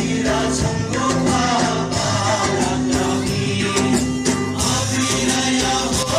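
A recorded song with singing and instruments plays loudly over a stage loudspeaker as dance music.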